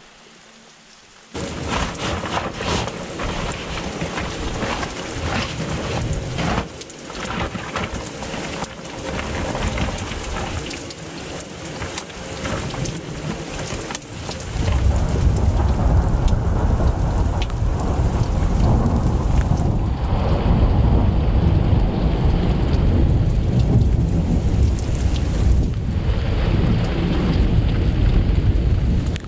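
Heavy thunderstorm rain pouring and splattering, with many sharp drop hits, starting suddenly about a second in. About halfway through, a deep rumble of thunder comes in and rolls on under the rain.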